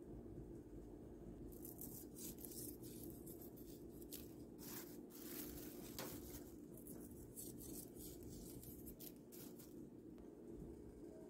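Faint rustling and scratchy handling in short spells, with a click about halfway through, as a bag of pink salt is handled and salt and pepper are sprinkled by hand. A steady low hum runs underneath.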